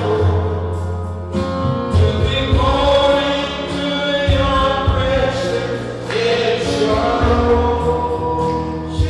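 Gospel worship music: a choir of voices singing over a band with a steady bass line.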